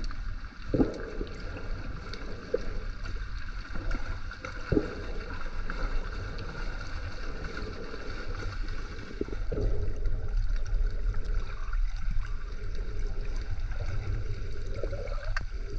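Muffled water noise picked up by a camera held underwater: a steady low rumble with a few short gurgles and knocks.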